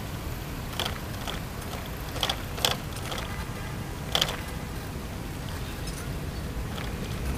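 Bicycle in motion on a paved path: a steady low rumble of wind and tyres, with a handful of sharp creaks and clicks from the bike, about five in the first four seconds and a faint one near the end.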